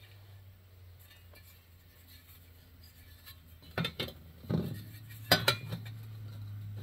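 Metal Peak 1 camp cookware pots knocking and clinking as they are handled and nested together. A handful of sharp clinks come from a little past halfway on, over a low steady hum.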